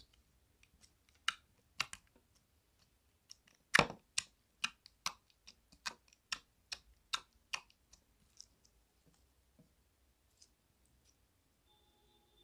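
Clear pink slime being squeezed and pressed by hand, giving sharp clicking pops from trapped air. The pops come about two or three a second and are loudest about four seconds in. They die away a little before the middle.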